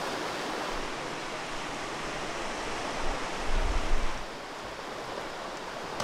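Fast-flowing river water rushing steadily, with a brief low rumble about three to four seconds in.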